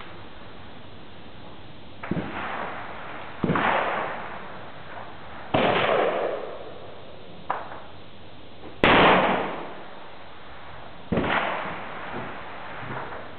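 Black powder revolver being fired single-handed, six sharp shots at uneven intervals, each trailing off in a long echo; the shot about nine seconds in is the loudest and the one about seven and a half seconds in is much fainter.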